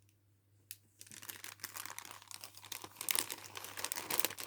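Plastic packaging crinkling and crackling as it is handled, beginning about a second in after a single click.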